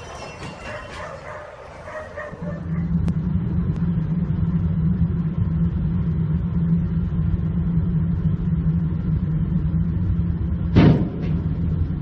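Quiet fading noise, then a steady drone of a vehicle's engine and road noise heard from inside a following car. Near the end, one sharp loud crash: a dump truck's raised tipper body striking a highway overpass.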